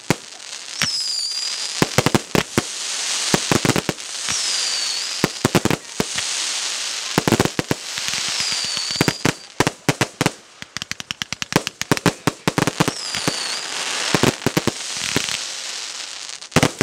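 Aerial fireworks going off in a finale: rapid sharp bangs and crackling bursts with a spray of hiss, and a short high whistle every few seconds.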